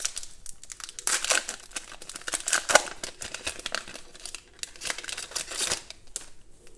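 Foil wrapper of a 2020 Absolute football card pack crinkling and tearing as it is opened by hand, in irregular spells of crackle that die down near the end.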